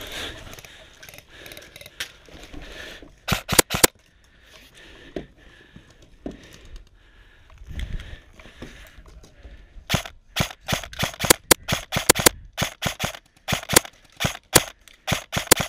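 Airsoft rifle firing, a Krytac SPR MK2 electric gun: a quick string of about half a dozen sharp shots about three seconds in, then a long run of rapid shots, several a second, from about ten seconds on.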